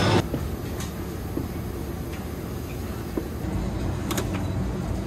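Restaurant kitchen background: a steady low rumble with a few light clicks.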